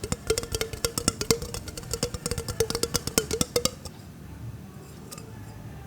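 An orange being shaken hard inside a glass jar, knocking rapidly against the glass about six times a second with a ringing tone under the knocks. The shaking stops after about three and a half seconds. It is done to soften the fruit.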